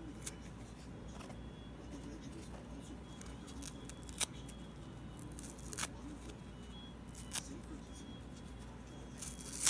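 Fingers tearing small pieces of foam sponge with a scrubber-pad layer: scattered short, crackly rips, a handful over several seconds, the loudest about four seconds in and near the end, over a steady low hum.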